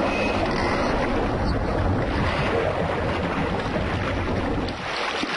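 Steady rushing noise of open sea water with a low rumble underneath.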